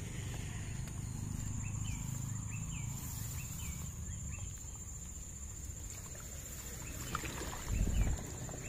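Outdoor ambience at a pond edge: a low rumble on the microphone, a steady high-pitched insect-like trill, and a row of short bird chirps over the first few seconds. A low thump comes near the end.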